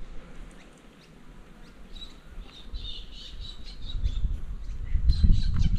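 Birds squawking and chirping, with short calls starting about two seconds in, over a low rumble that grows louder toward the end.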